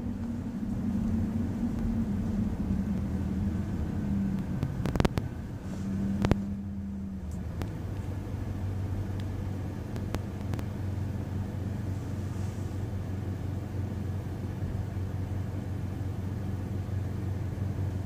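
Low, steady engine and road rumble heard from inside a car's cabin, with two sharp clicks about five and six seconds in.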